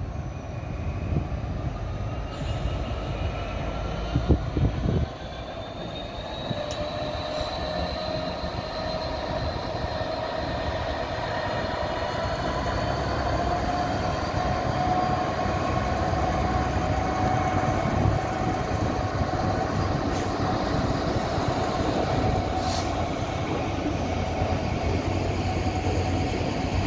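Freightliner Class 66 diesel locomotives running on the move, their two-stroke engines giving a rumbling drone whose note climbs slowly over the first half and then holds steady. A couple of loud knocks come about four to five seconds in.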